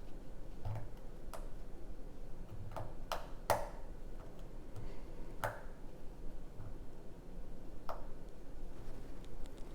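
Lock pick and tension wrench working the pins of a six-pin pin-tumbler lock: scattered, irregular metallic clicks and ticks over a faint steady hum, the loudest click about three and a half seconds in.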